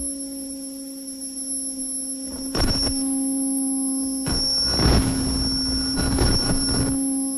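Harsh noise music from modular electronics: several steady held tones, low and high, squealing together, cut through by bursts of harsh noise, a short one about two and a half seconds in and a longer one from about four to seven seconds.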